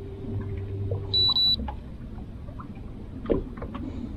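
Two short, high electronic beeps in quick succession, about a second in, from the boat's electronics, as a low steady hum cuts off. A few sharp knocks and clicks follow, one louder than the rest.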